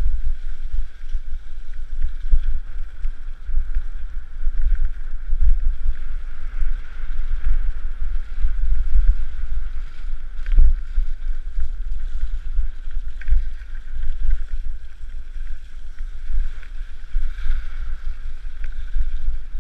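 Wind buffeting a helmet-mounted camera's microphone as a mountain bike is ridden fast over a wet, muddy trail, with a steady rushing hiss from the ride. A few sharp knocks come from the bike jolting over the rough ground, the clearest about halfway through.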